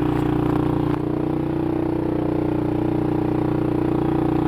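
Motorcycle engine running steadily, with a slight change in its note about a second in.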